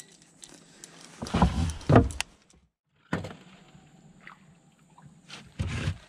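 Several dull thumps and knocks of handling in a wooden boat, a cluster about one and a half to two seconds in and another near the end; the sound cuts out briefly in the middle.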